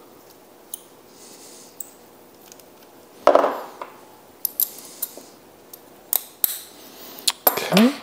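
A steel collet and collet nut clinking and clicking as they are handled and fitted together on a wooden bench. There are a series of separate small clicks, with a louder knock a little past three seconds in.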